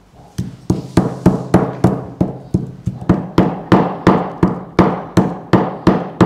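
Wooden pestle pounding in a wooden bowl, mashing cooked vegetables: a steady run of hollow knocks, about three a second, starting about half a second in.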